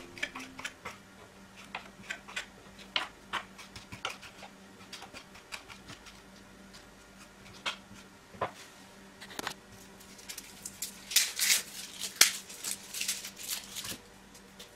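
Kitchen knife chopping fresh parsley on a wooden cutting board: irregular knocks of the blade against the board, with a quicker, louder run of chops about three quarters of the way through.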